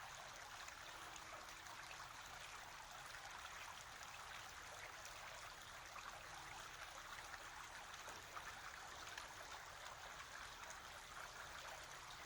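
Quiet, steady background hiss with a fine trickling texture, like gently running water.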